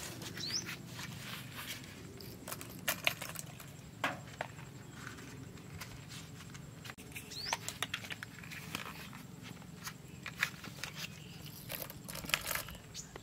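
Scattered light clicks and taps of wooden matchsticks and plastic disposable lighters being handled and dropped onto a cardboard sheet.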